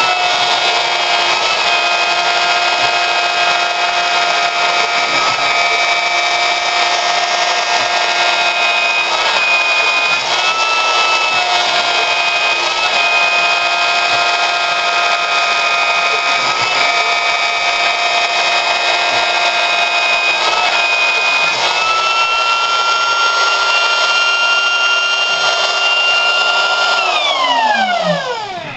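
High-speed auxiliary spindle on a G0704 milling machine, cutting aluminium plate at a 50 inch-per-minute feed. It runs with a loud, steady high whine that dips briefly in pitch several times. Near the end the pitch falls smoothly as the spindle winds down.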